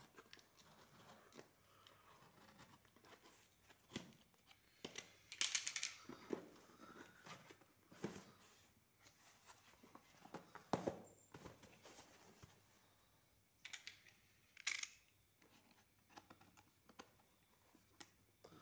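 Box cutter slicing packing tape and cardboard on a parcel, with tape tearing and the box being turned over: scattered scrapes and taps, the loudest bursts about five, eleven and fifteen seconds in.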